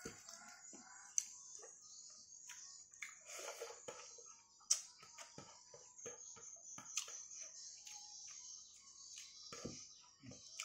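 Eating by hand: scattered small clicks and smacks of chewing and of fingers pressing rice on a plate, over a steady high hiss.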